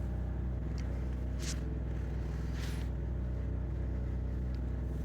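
A steady low machine hum holds level throughout, with a couple of faint, brief rustles on top.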